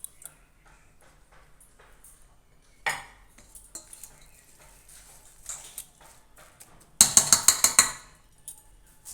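Spoon clinking and scraping against a bowl while mixing grated vegetables into beaten egg: light scattered clicks, one sharp clink about three seconds in, and a quick run of loud clinks about seven seconds in.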